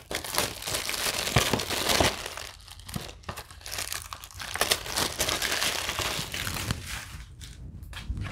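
Plastic shrink wrap being peeled off a Blu-ray case and crumpled in the hands: dense crinkling and crackling that thins out about seven seconds in.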